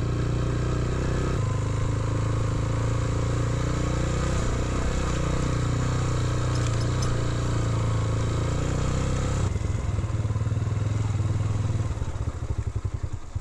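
Motorcycle engine running steadily under way. About nine and a half seconds in, the note drops as the throttle is closed, and near the end it settles into a slow, pulsing idle as the bike comes to a stop.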